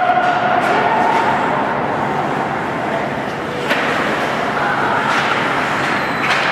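Live ice hockey play in a rink: a steady din of skates on the ice with voices calling out, and a sharp knock about four seconds in and another near the end.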